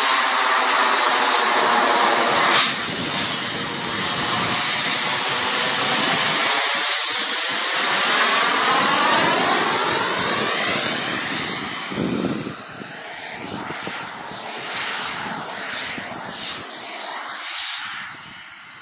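Jet aircraft flying past overhead, a loud rushing jet noise with a sweeping, phasing quality that fades away about twelve seconds in as the plane moves off.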